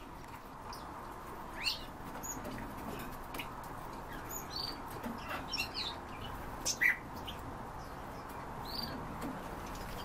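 Small cage birds chirping, short scattered high calls with the loudest pair about seven seconds in, over a steady background hiss.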